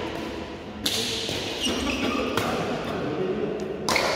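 Badminton rackets striking a shuttlecock in a rally: three sharp hits about a second and a half apart, over a steady background murmur.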